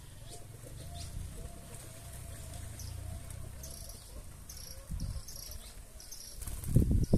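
Outdoor ambience of short, repeated high chirps from birds or insects and faint soft calls over a low rumble. There are a few loud low thumps about five seconds in and near the end.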